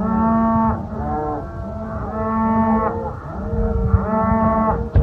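Several cattle mooing, long drawn-out calls overlapping one after another at different pitches: the cows are calling to be fed. A sharp knock comes just before the end.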